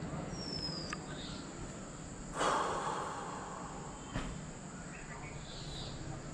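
Outdoor ambience: a steady background hum with a short falling whistle near the start, a brief loud burst of noise about two and a half seconds in, and a sharp click about four seconds in.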